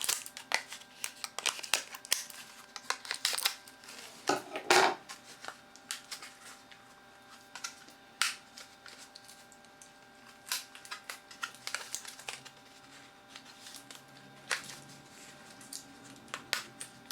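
Packaging of new RAM modules being opened and handled: scattered crinkles and clicks, with a louder rustle about four and a half seconds in.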